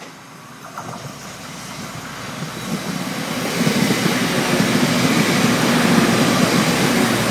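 Class 185 diesel multiple unit approaching and passing close by: its diesel engine and wheels on the rails grow steadily louder over the first few seconds, then hold at a loud, steady level as the coaches go past.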